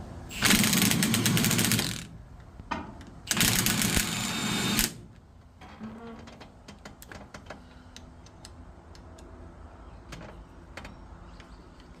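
Two bursts of a 3/4-inch Milwaukee impact wrench hammering, each about a second and a half, driving the center bolt of a steering-wheel puller. The bolt is only turning without drawing the stuck wheel up. Scattered light clicks follow.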